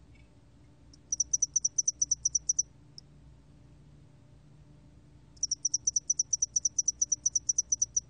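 A 점날개털귀뚜라미 cricket singing at 21 °C: two runs of rapid high-pitched pulses, about ten a second. The first starts about a second in and lasts about a second and a half, a single pulse follows, and the second run starts a little past five seconds in.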